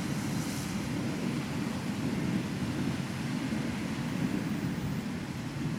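Thunderstorm: a low, continuous rumble of rolling thunder over a steady hiss of wind.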